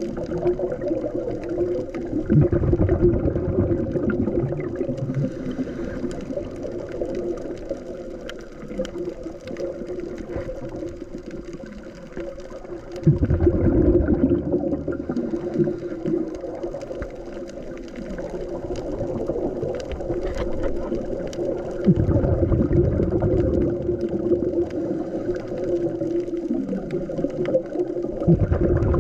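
Underwater sound of a scuba diver breathing through a regulator: exhaled bubbles rush out in four loud surges several seconds apart, over a steady low hum.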